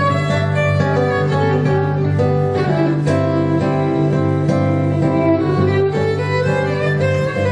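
A violin and acoustic guitar duo playing an instrumental passage live: the bowed violin carries sustained melody notes over the guitar's accompaniment.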